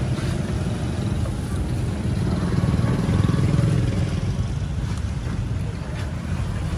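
Street traffic: motorbikes and cars passing, a steady low engine rumble that swells a little about halfway through.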